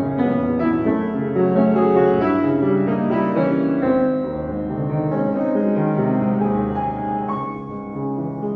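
Piano playing a piece, with melody notes and chords ringing over one another.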